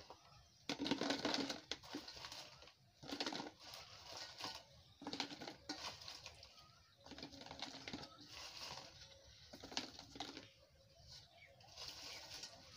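Spiced pieces of badhar (monkey jack) fruit scooped by hand from a steel bowl and dropped into a plastic jar. The sound comes in short, irregular rattling handfuls, one every second or two.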